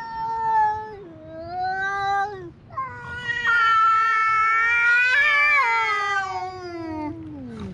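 Two cats yowling at each other in a standoff before a fight: long, wavering, drawn-out calls, the two voices overlapping in the longest one, which slides down in pitch near the end.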